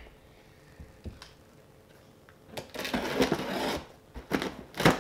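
Retractable utility knife being readied: a quick rattling run of clicks, like the blade being ratcheted out, about halfway through, then two sharp clicks near the end.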